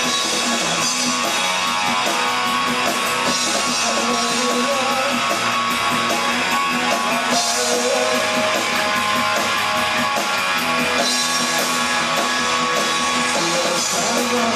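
Rock band playing an instrumental passage: guitars over a drum kit, with a steady cymbal beat.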